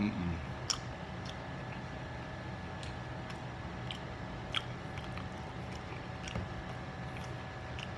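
A man eating fried sausage dipped in ranch: close chewing with scattered short, sharp wet mouth clicks and smacks every second or two.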